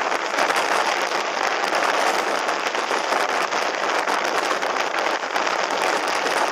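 Strong wind rushing over the microphone during windsurfing: a loud, steady roar of noise with fine crackling all through it, dropping away just after the end.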